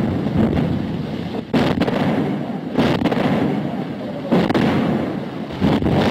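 Artillery shells bursting: four blasts about a second and a half apart, each trailing off in a low rumble.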